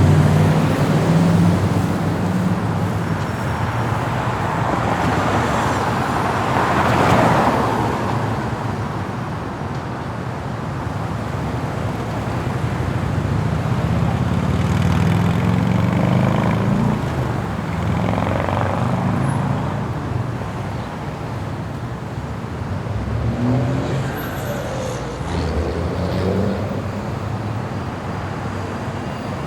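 City street traffic: a continuous wash of car and engine noise, with vehicles passing and the rumble swelling and easing, loudest about seven seconds in.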